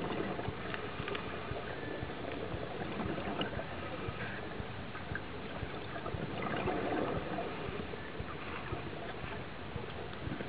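Muffled underwater noise through a diver's camera housing, with gurgling from a scuba diver's bubbles and small scattered clicks. A louder gurgling swell comes about six and a half seconds in.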